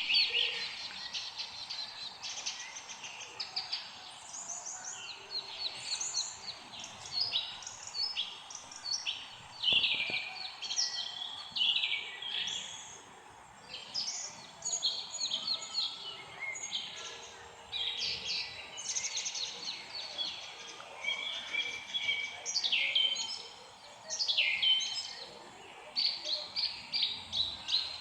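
Several songbirds singing and chirping over one another, in quick series of short high notes and trills that come and go every second or two, over a faint steady background hiss.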